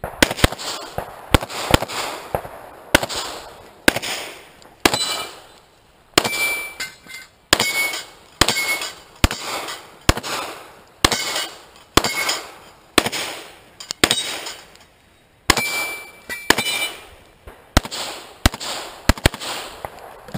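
Handgun shots fired one after another at about one a second, about twenty in all. After several shots comes a brief metallic ring, typical of steel targets being hit.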